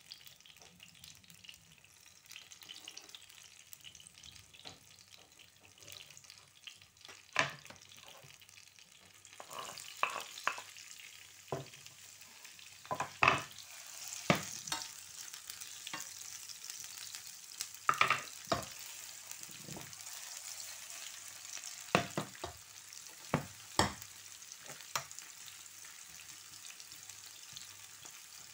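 Garlic frying in oil in a nonstick pan with a soft, steady sizzle; about a third of the way in, sliced onion goes in and the sizzle grows louder. Utensils click and scrape against the pan many times as the onion is stirred.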